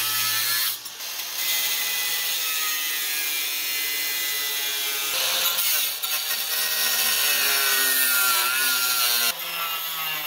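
Angle grinder with a cut-off wheel cutting into the metal at the back of a Jeep grille: a steady grinding hiss over a motor whine that rises and falls in pitch as the wheel bites. The sound changes abruptly about a second in, midway and near the end.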